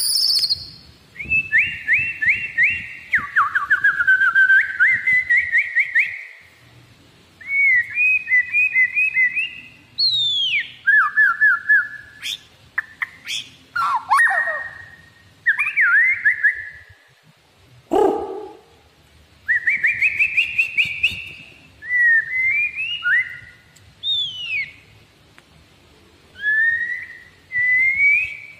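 White-rumped shama (murai batu) in full song while held in the hand: bursts of fast repeated and trilled whistled notes with short pauses between phrases, and one low note sliding down about two-thirds of the way through. It is a tame bird that keeps singing even when handled.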